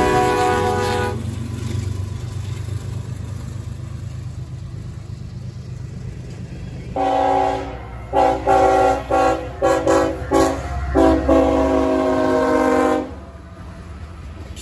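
Approaching freight locomotive's air horn: a horn blast dies away about a second in, then after a pause it sounds again for about six seconds, a blast followed by a rapid run of short toots and a long final blast. A low train rumble runs underneath.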